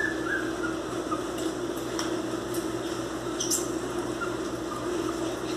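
Miniature pinscher puppies tussling: a few faint, short, high squeaks and some light clicks over a steady background hum.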